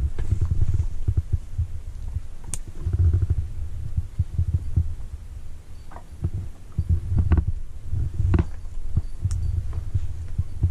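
Low, uneven rumble buffeting the microphone, with a few sharp clicks or knocks; the sharpest comes about two and a half seconds in and several more follow in the second half.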